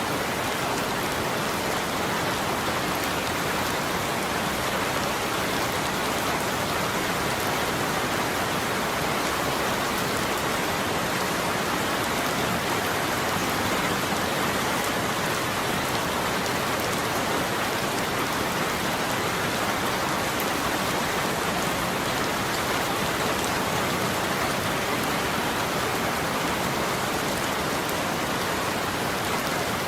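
Steady rain falling, an even, unbroken hiss of many drops that neither builds nor fades.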